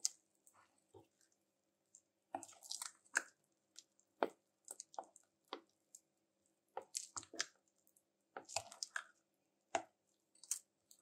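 A metal spoon stirring thick chocolate cake batter in a glass bowl: irregular wet squishes in short clusters, with light clicks of the spoon on the bowl.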